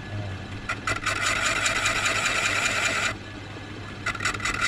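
Wood lathe running with a steady hum while a cutting tool scrapes decorative grooves into a turning dar-wood vessel. The scraping stops for about a second around three seconds in, leaving only the motor, then starts again near the end.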